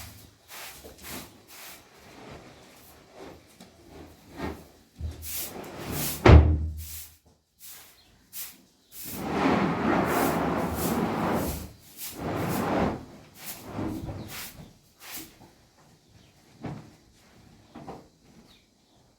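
Irregular knocks and clatter from handling objects, with one heavy thump about six seconds in and a few seconds of scraping noise about halfway through.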